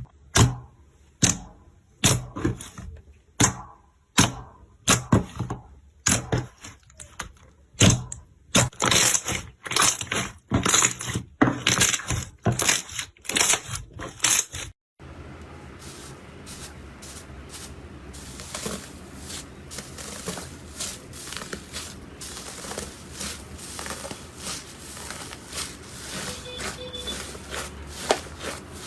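Slime being pressed and worked by hand, a quick run of sharp crackling clicks and pops. About halfway through the sound cuts to a quieter clip of soft clicks and squishes over a faint steady background noise.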